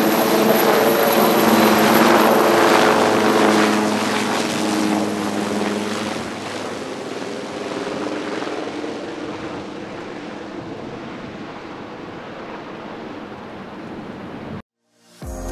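Sikorsky S-76D helicopter taking off and flying away: twin-turbine whine and rotor noise with steady low rotor tones, fading as it climbs away. The sound cuts off suddenly near the end.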